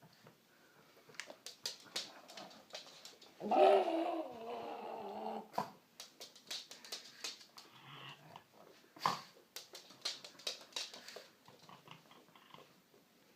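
A pug making a weird, whining, grumbling vocal noise that wavers in pitch for about two seconds, starting about three and a half seconds in, with a fainter one later on. Short clicks and taps come throughout. The owners take the noise for her excitement at getting a bone.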